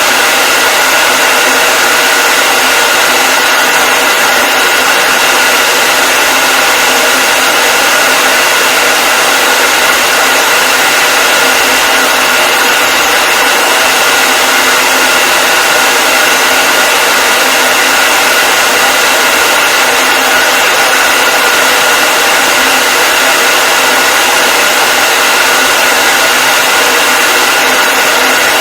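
Electric hair dryer running continuously: a steady, unchanging rush of blown air with a high motor whine.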